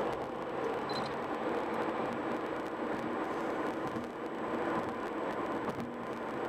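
Steady road noise inside a moving car's cabin: tyre rumble and engine hum while driving.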